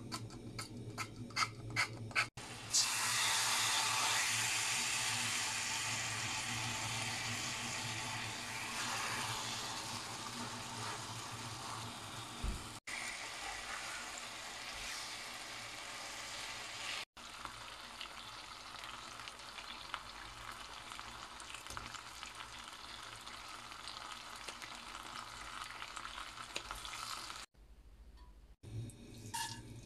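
Food sizzling in hot oil in a pan: a few clicks of a utensil on the pan, then a loud sizzle that starts suddenly about three seconds in as food goes into the oil and slowly settles into steady frying, with scrapes of stirring.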